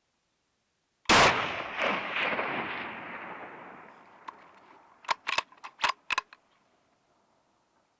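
A single hunting rifle shot, its report echoing back and rolling away over about three seconds. A few seconds later comes a quick run of sharp clicks.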